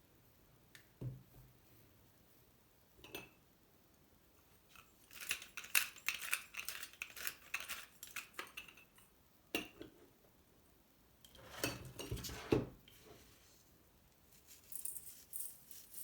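Kitchen utensils and dishes clinking and clattering in several separate bursts, with single knocks between them and quiet gaps.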